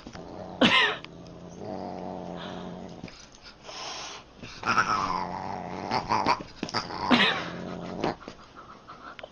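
A Siamese cat and a dog play-fighting: long stretches of growling broken by a few short, sharp yowls.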